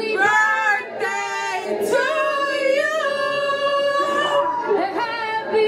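A woman singing, with a long held note in the middle and no clear beat behind her.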